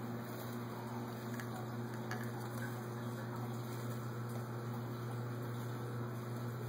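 Steady low electrical hum over an even hiss, with a few faint clicks.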